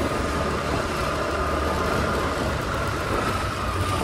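Honda Activa scooter's single-cylinder engine running steadily while riding, with a faint whine that eases slightly lower near the end, over a steady hiss of road and wind noise.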